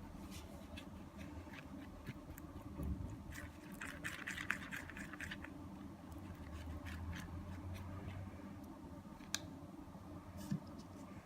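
Glitter-glue slime being stirred in a bowl as the activator sets it: faint scraping and small clicks of the utensil against the bowl. The stirring is busiest around four to five seconds in, with a couple of sharper clicks near the end.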